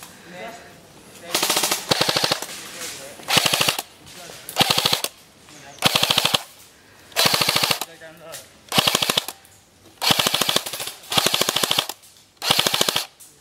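Airsoft rifle fired close by in about ten short full-auto bursts, each about half a second of rapid mechanical clicking, with brief pauses between bursts.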